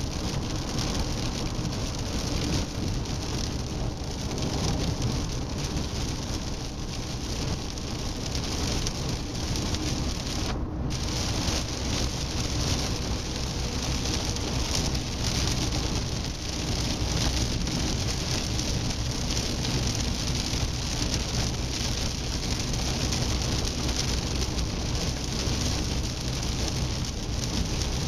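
First-generation Seat Leon (1M) driving steadily: low engine and road rumble under an even hiss of tyre and wind noise. The hiss drops out for a moment about ten seconds in.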